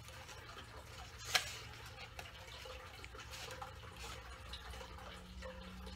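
Faint rustling and ticking of paper pieces being handled, with one sharp click about a second and a half in, over a low steady hum.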